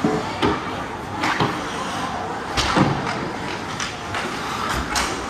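Ice hockey play in a rink: about eight sharp knocks and slams, from stick and puck hitting the boards and ice, over a steady hiss of rink noise.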